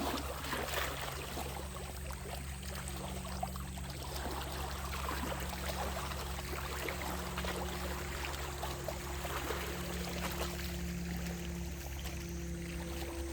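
Sea waves washing and splashing against the shore in a continuous, uneven wash of water. A faint steady hum grows louder over the last few seconds.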